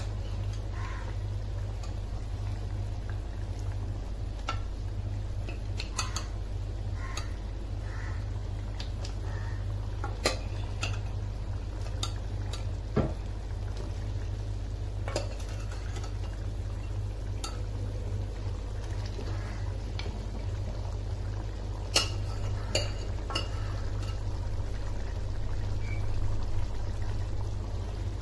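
Curry bubbling in a stainless steel pan over a steady low hum, with a steel ladle clinking against the pan now and then, loudest about ten, thirteen and twenty-two seconds in.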